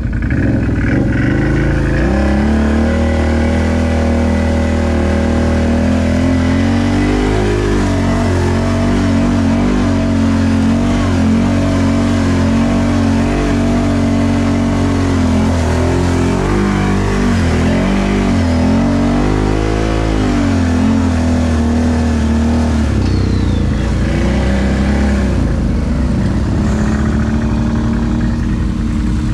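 Off-road vehicle engine running and revving, its pitch climbing and falling back about a quarter of the way in and again past the middle, then settling lower.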